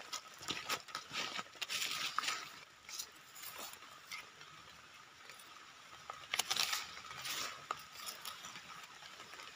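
Knife blade scraping and cutting into damp soil and leaf litter as a mushroom is dug out and handled: two spells of short, crisp scrapes and clicks.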